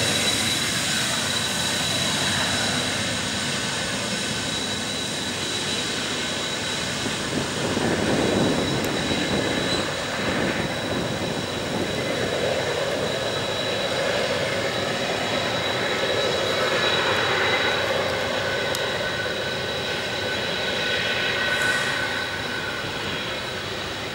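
A heavy loaded coal train climbing a grade: the steady rumble and clatter of loaded coal hopper wagons rolling past, under the diesel locomotives working hard at the head of the train. A thin steady high tone runs above it, and the sound eases slightly near the end.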